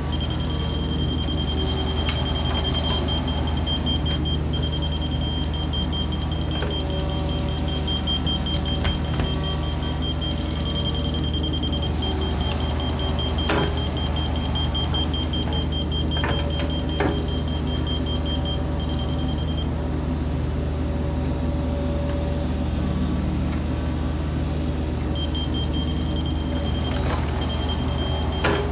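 Kubota KX71 mini excavator's diesel engine idling steadily, with a few sharp metal clicks scattered through. A high, fast-pulsing beep runs over it, stops about two-thirds of the way in and comes back near the end.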